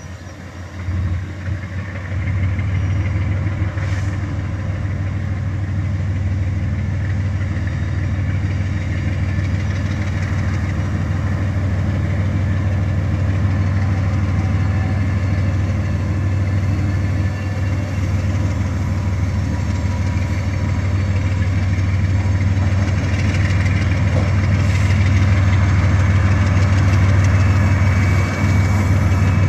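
Diesel switching locomotive's engine running with a deep, steady rumble that grows gradually louder as the locomotive draws near.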